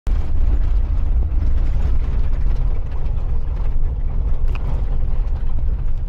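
Car driving on an unpaved dirt road: a loud, steady low rumble from the tyres and running gear, with constant rattling and clatter over the rough surface.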